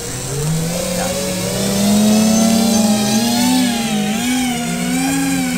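Electric quadcopter lift motors and propellers of a VTOL RC Quinjet model spinning up for takeoff and hovering. Several close tones rise in pitch about half a second in, then waver up and down as the throttle is worked to hold the hover.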